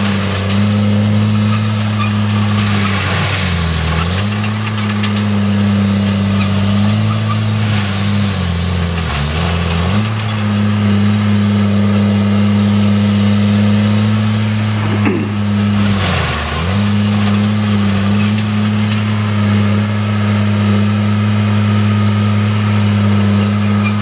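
Rayco tracked forestry mulcher's diesel engine running hard while the mulching head chews into brush, over a steady shredding noise. The engine note sags briefly three times under load and then recovers.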